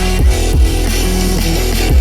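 Loud electronic bass music with a heavy sustained sub-bass, short sliding synth notes and a few punchy low drum hits.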